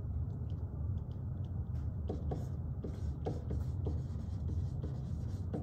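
Dry-erase marker writing on a whiteboard: a run of short, irregular marker strokes over a steady low room hum.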